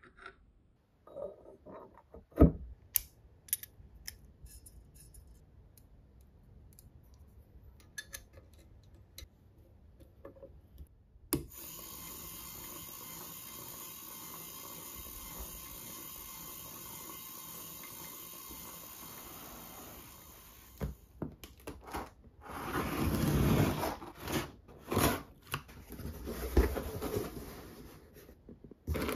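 Small metal engine-model parts clicking and clinking as they are handled and fitted. Then, for about eight seconds, a steady mechanical whir from the finished metal four-cylinder engine model turning over on its electric motor. Near the end comes loud rustling and scraping of cardboard and air-cushion packaging as the shipping box is opened.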